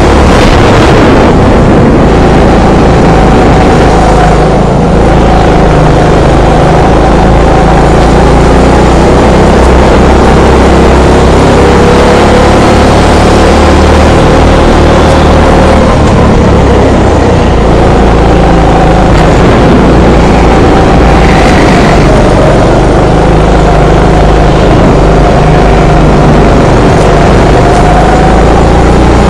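Go-kart engine heard from on board at driving speed, its pitch rising and falling as the driver lifts off and accelerates through the corners. Loud and steady.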